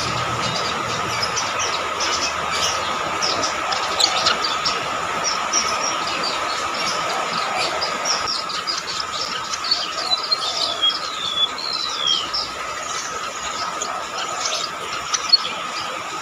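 Rametuk laut (golden-bellied gerygone) singing shrill, high, thin chirps and descending whistles, busiest in the second half, over a steady high-pitched whine.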